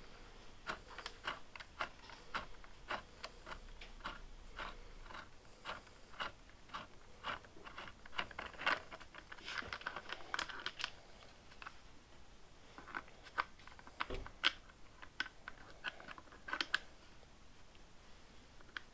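Light, irregular clicks and taps of small handlebar-end parts being handled and fitted by hand, a few per second and uneven in spacing.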